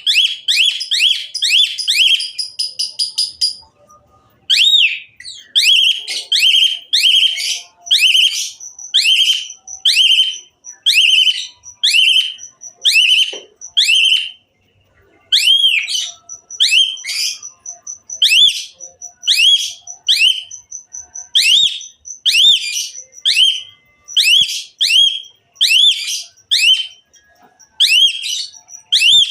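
A pied starling (jalak suren) singing a long run of loud, sharp rising whistles, about two a second. A thin high tone is held over some of the notes, and the run breaks off briefly twice.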